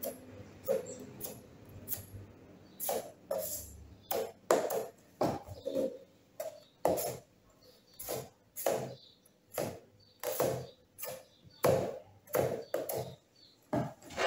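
A tool scraping acrylic putty across the edge of an MDF disc in a series of short strokes. The strokes are faint at first and come a little under two a second from about three seconds in.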